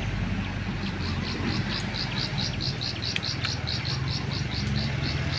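Loaded dump truck's diesel engine running steadily, overlaid from about a second in by a rapid, high-pitched chirping repeated about four to five times a second.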